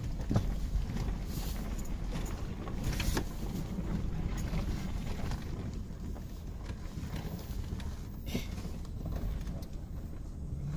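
Cabin sound of a 2002 Chevy Suburban's V8 driving slowly over a dirt trail: a steady low engine and tyre rumble, broken by a few sharp knocks and taps as the truck rolls over the rough ground and through brush.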